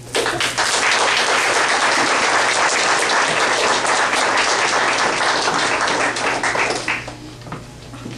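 Audience applauding, loud and steady for about seven seconds, then dying away.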